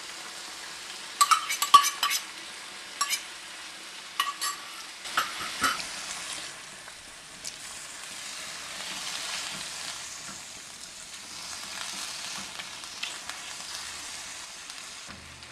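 Shrimp and eggplant curry sizzling in a nonstick wok while it is stirred with a spatula. In the first six seconds there is a run of sharp clicks and scrapes of utensils against the pan, then a steady sizzle.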